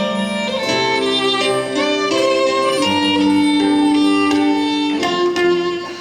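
Instrumental music with no singing: a melody of long held notes over plucked string accompaniment.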